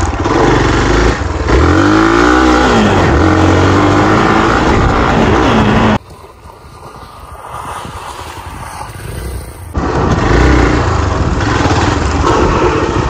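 Hero Xpulse 200's single-cylinder engine revving up and down under load on a rough dirt track, heard close up. About six seconds in it drops suddenly to a quieter, more distant motorcycle engine, and near ten seconds it comes back loud and close.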